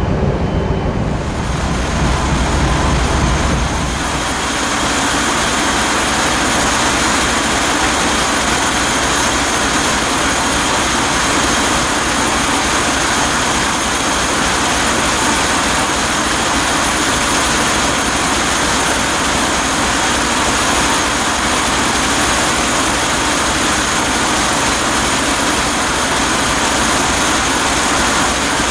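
Burmeister & Wain seven-cylinder two-stroke marine diesel (DM742 VT2BF90) running steadily at sea. For the first few seconds its exhaust gives a deep rumble at the funnel, then it is a loud, even engine-room din with a few faint high steady tones.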